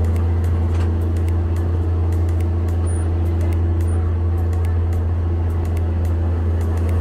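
The boat's engine running steadily under way, a loud, unbroken low drone.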